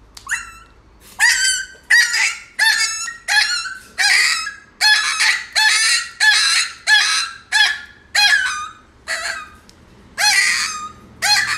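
Chihuahua puppy yelping over and over in short, high-pitched, honk-like calls, about one and a half a second, with a couple of brief pauses.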